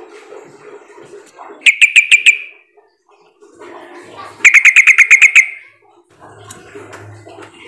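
Yellow-vented bulbul (trucukan) calling in two bursts of rapid chattering notes: a short run of about six notes about two seconds in, and a longer run of about ten notes halfway through.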